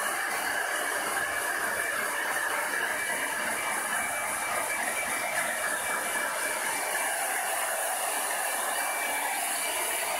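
Hand-held hair dryer blowing steadily, a constant rush of air with a thin high whine from its motor.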